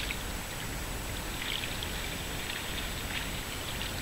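Canoe paddle working in calm lake water: faint swishes and trickling, with a brief burst about a second and a half in and another about three seconds in, over a steady low rumble.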